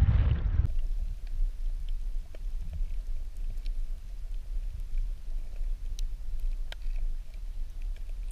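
Wind and water noise on the above-water microphone, cut off under a second in by the muffled sound of a camera held underwater over shallow coral: a steady low rumble with scattered faint clicks and crackles.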